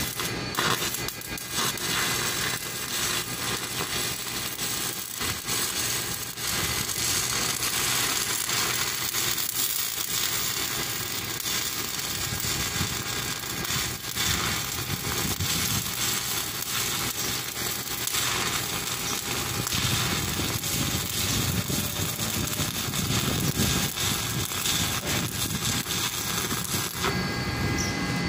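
Stick-welding arc crackling and sizzling steadily as the electrode burns along the weld, cutting off shortly before the end.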